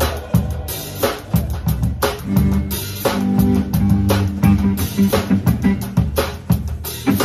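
A live band playing a groove, with a drum kit keeping a steady beat under guitar.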